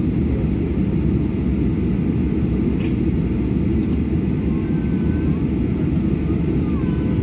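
Steady low rumble of an airliner's jet engines at taxi power, heard from inside the passenger cabin, with no rise in pitch or loudness.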